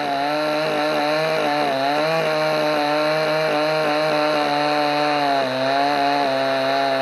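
Two-stroke chainsaw running at high speed, cutting through hickory slabs; its pitch sags slightly under load about five and a half seconds in.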